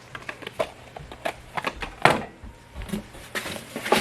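Clicks, taps and knocks of small replacement car parts and their packaging being handled, with one louder knock about two seconds in.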